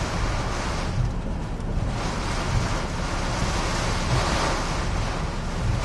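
Hurricane-force wind and wind-driven rain from Hurricane Katrina's eyewall, heard from inside a vehicle as a steady noise with a low buffeting rumble, surging and easing in gusts.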